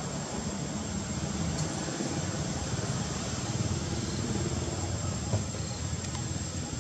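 Steady rumbling background noise with a faint high whine running through it, and one small tick about five seconds in.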